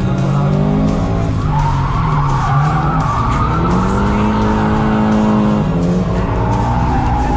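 Toyota GT86's flat-four engine revving hard in a drift, heard from inside the cabin, its pitch rising and falling with the throttle. Tyres squeal from about a second and a half in, fade, then come back near the end.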